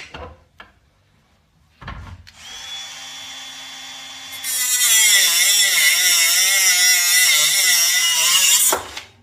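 Small angle grinder spinning up with a steady whine, then biting into metal about two seconds later: a loud grinding whose pitch wavers as the disc is loaded, lasting about four seconds before it stops abruptly near the end.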